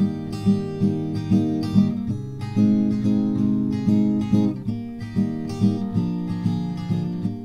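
Background music on a Martin 000-EC28 acoustic guitar, played in a steady, regular picking pattern with the chords changing a few times.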